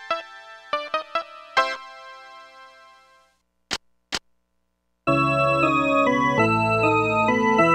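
Casio SA-10 mini keyboard: a few short plucked notes ring and fade to silence, then two clicks as its tone-select buttons are pressed. About five seconds in, a new sustained voice starts, playing held chords over bass notes.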